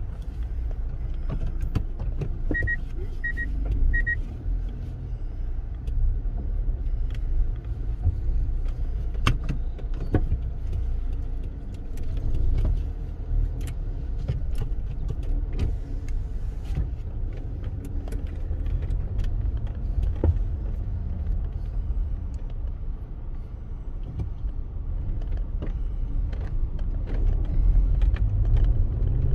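A car driving, heard from inside: a steady low road rumble with scattered light clicks and rattles, and three short high beeps a few seconds in.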